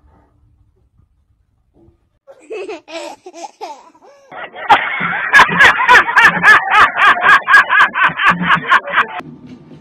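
A man laughing loudly and heartily in quick repeated bursts, about four a second, starting about halfway through and cutting off shortly before the end. Before it, a small child's voice sounds briefly.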